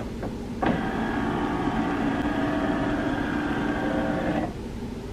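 HP DeskJet 4100 inkjet printer's carriage moving under its motor: a few light clicks, then a steady mechanical whir that starts with a click under a second in and stops about a second before the end. The carriage moving is the sign that the printer's factory reset has finished.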